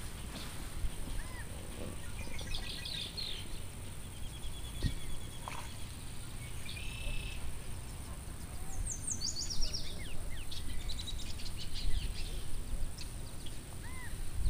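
Small birds chirping and trilling, with short rapid trills and a run of high falling notes about nine seconds in, over a steady low rumble.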